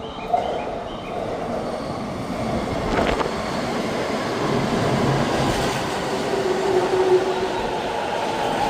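JR East E233-1000 series electric commuter train running on the rails and growing louder as it approaches. There is a sharp click just after the start, a knock about three seconds in, and a brief steady tone a little past the middle.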